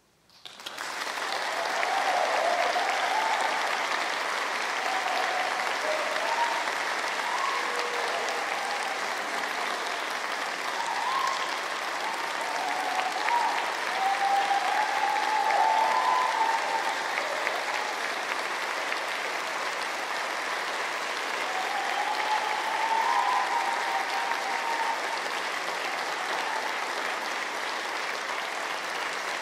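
Concert audience applauding, breaking out suddenly about half a second in and carrying on steadily, with a few short cheers over the clapping.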